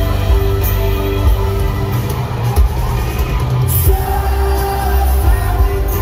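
Live rock band playing, with electric guitars, drums, heavy bass and singing, recorded from the audience in a large venue.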